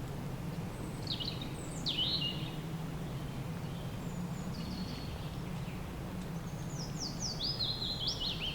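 Birds calling with short, high, downward-sweeping chirps: a few in the first seconds, then a quick run of them near the end, over a steady low background rumble.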